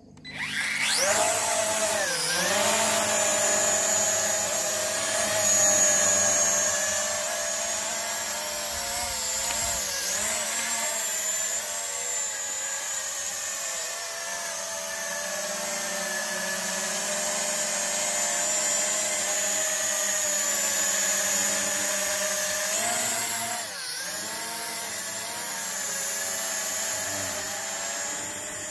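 Small foldable TC-3 quadcopter drone's motors and propellers starting up suddenly and whining steadily as it takes off and hovers. The pitch dips and recovers briefly about two seconds in, around ten seconds, and again near the end, as the throttle changes.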